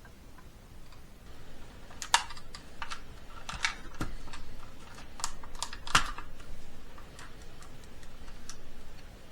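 Irregular clicking and tapping of a car's plastic climate control unit being handled and worked apart, with sharper clicks about two, four and six seconds in.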